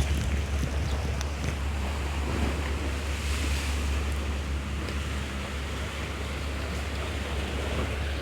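Sea waves washing steadily against a rocky shore, under a constant low rumble of wind buffeting the microphone.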